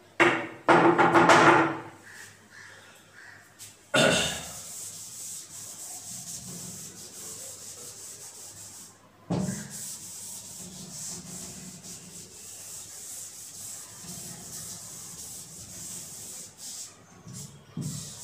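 Blackboard duster rubbing across a chalkboard to erase chalk: a steady scratchy rubbing from about four seconds in, with a short break about halfway. A brief louder sound comes in the first two seconds.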